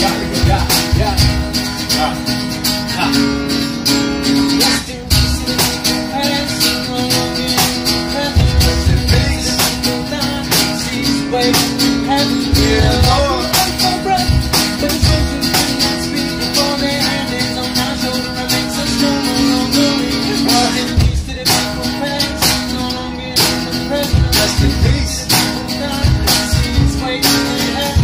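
Acoustic guitar strummed in a fast, steady rhythm, accompanying a man rapping.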